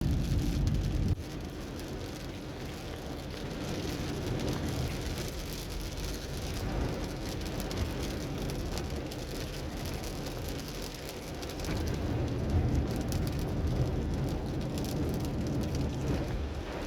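Rain pattering on a moving car, many small drop ticks over a low rumble of the car and road. The rumble is louder for about the first second, then drops, and builds again about two-thirds of the way through.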